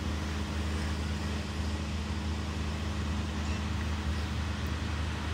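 Steady low rumble under an even hiss: outdoor background noise with no distinct event.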